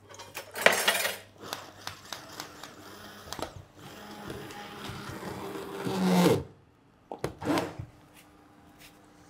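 Hand-held immersion blender running in a pot of Parmesan sauce, frothing it: a sharp burst about half a second in, then a steady whir for a couple of seconds that winds down and stops about six seconds in.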